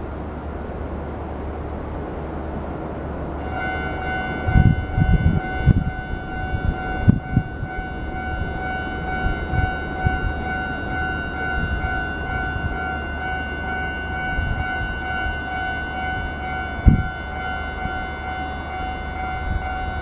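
Hankyu railway level-crossing warning bell starting about three and a half seconds in and ringing on steadily as a rapidly repeating electronic chime: the crossing is warning of an approaching train. Underneath is a steady low rumble with a few low thumps.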